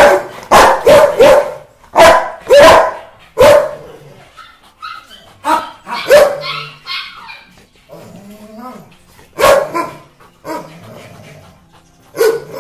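Rottweiler barking: a quick run of loud, sharp barks, then softer sounds for several seconds, then another loud bark about nine and a half seconds in.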